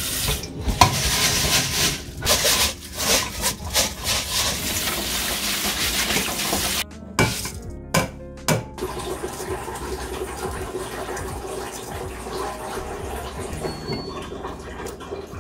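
Water running and splashing in a kitchen sink for about seven seconds, then a few sharp knocks and a quieter stretch of water, with background music.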